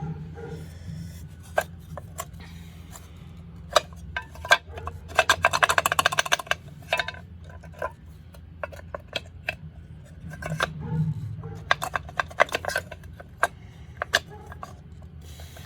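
Hand tools working on dirt bike bolts and parts: scattered metal clinks and knocks, with spells of rapid clicking about five seconds in and again around eleven seconds. A steady low hum runs underneath.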